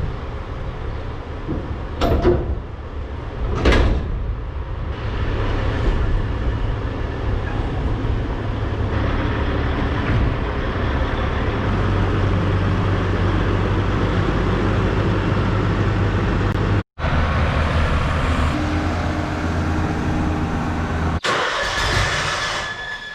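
Tractor engine running steadily while mowing tall roadside weeds, with a noisy rush over the low engine hum. Two sharp knocks come in the first few seconds, and the sound cuts off for a moment twice in the later part.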